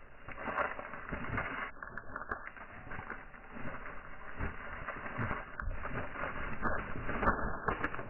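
Scattered soft taps and low thumps over a steady outdoor hiss: wood pigeons pecking seed on a feeding table.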